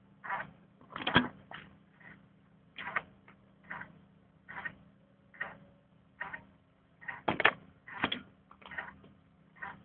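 A digital tachograph's built-in printer printing a slip slowly, in short whirring bursts a little more than once a second, two of them louder, over a faint steady low hum.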